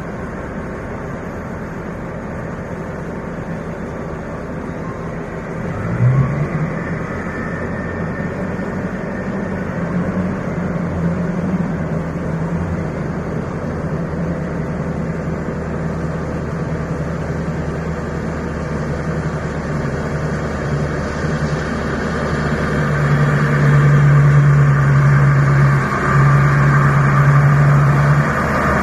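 Large diesel engine of a Caterpillar mining haul truck running steadily, surging briefly about six seconds in and running louder in the last few seconds with a short dip.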